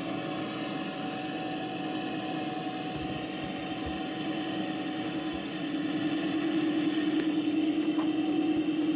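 Combine harvester running in the field: a steady engine and machinery drone that grows a little louder in the second half.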